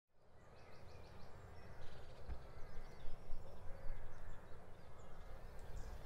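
Outdoor ambience fading in: faint bird song over a steady low rumble, with a quick run of about five short high notes near the start.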